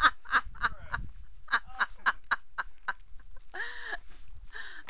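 A person's voice: a quick run of short laugh-like bursts, then two short nasal squawks near the end.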